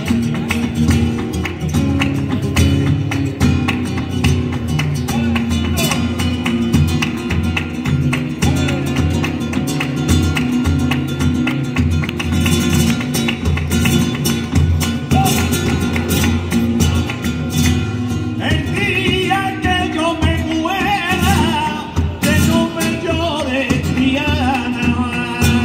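Flamenco bulerías: a Spanish guitar played with palmas, hand-clapping that keeps the rhythm. About eighteen seconds in, a male flamenco singer comes in with a long, wavering sung line over the guitar and clapping.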